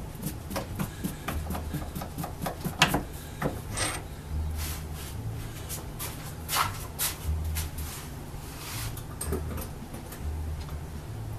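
Metal clinks, clicks and scraping of tools being handled and set up on a lathe's carriage and tool post, with the lathe stopped. Under them a low hum pulses on and off.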